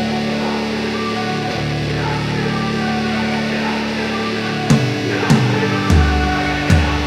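Rock or metal background music: held guitar chords, then drum hits with a deep kick come in about two-thirds of the way through.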